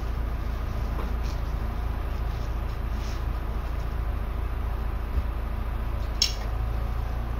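Steady low hum, with a few faint light clicks and one sharper click about six seconds in.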